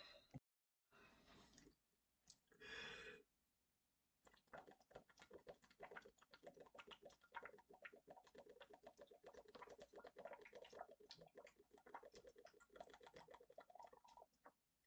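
Near silence: a soft breath about three seconds in, then faint, rapid, irregular crackling clicks for most of the rest.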